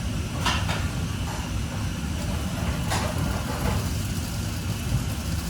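Steady low motor rumble with a few faint clicks.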